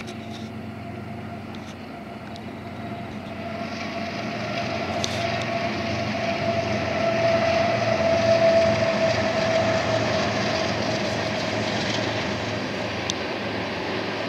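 Freight train led by a BNSF diesel locomotive passing at speed. It grows louder to a peak about eight seconds in, then runs on steadily as the cars roll by, with a held tone and a few sharp clicks over the rumble.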